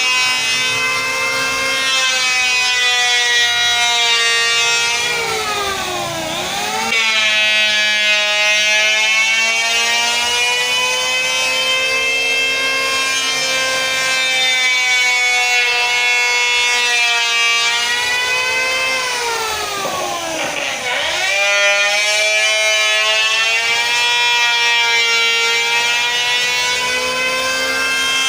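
Electric wood planer running with a loud, steady, high whine. Twice its pitch dips sharply and climbs back within about a second, about six seconds in and again near twenty seconds.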